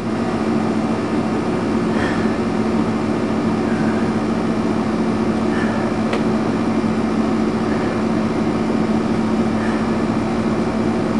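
Air conditioner running with a steady hum and even whoosh, with one faint click about six seconds in.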